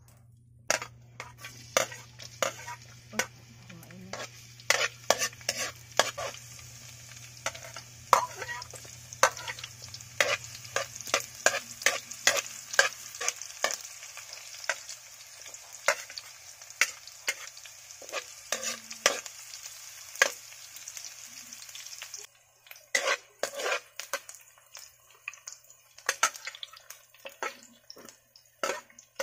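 Hot oil sizzling in a wok as garlic, onion, chilli and lemongrass are sautéed, with a metal ladle scraping and clinking against the pan many times. The sizzle stops about two-thirds of the way through while the ladle clinks go on.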